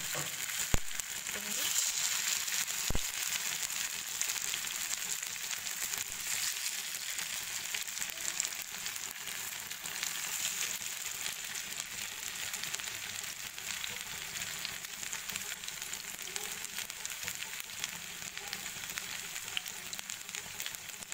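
Marinated chicken pieces sizzling and crackling steadily as they shallow-fry in a little hot oil in a non-stick pan. There are a couple of sharp clicks within the first three seconds.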